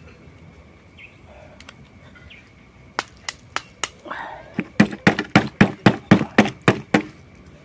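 Kitchen knife striking grilled oyster shells: four spaced sharp knocks about three seconds in, then a faster run of about a dozen louder knocks, roughly four or five a second, ending near seven seconds.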